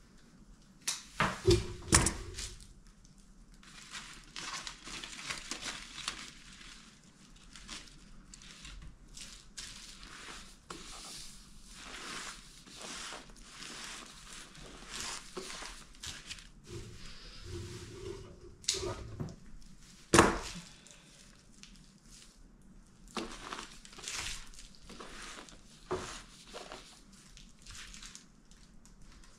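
Craft materials being handled: irregular crinkling and rustling with small clicks, and a few sharp knocks, a cluster near the start and a single loud one about two-thirds of the way through.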